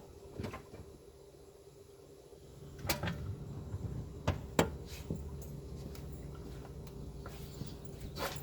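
Several sharp knocks from the rear end of a 2013 Dodge Charger R/T rolling in neutral with the engine off, the loudest about three and four and a half seconds in, over a low rumble that starts near three seconds in. This is the rear-end knock whose cause the owner cannot find.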